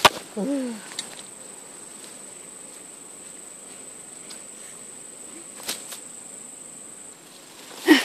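A steady, high-pitched insect call that cuts off abruptly about seven seconds in, over light rustling. A sharp click at the very start is followed by a brief low sound that rises and falls, and there are a couple of faint clicks later on.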